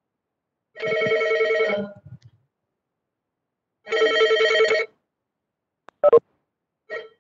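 Electronic telephone ringing: two rings about a second long and three seconds apart, each a steady two-note tone. Two short knocks follow near the end.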